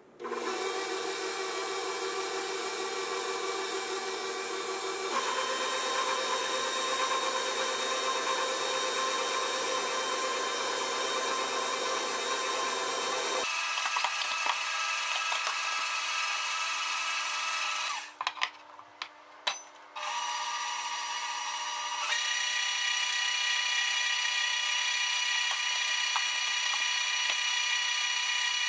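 KitchenAid Professional 620 stand mixer running, its flat beater mixing flour into a butter cookie dough. The motor's steady whine shifts in pitch a few times, stops for a couple of seconds about two-thirds through with a few clicks, then starts again and cuts off at the end.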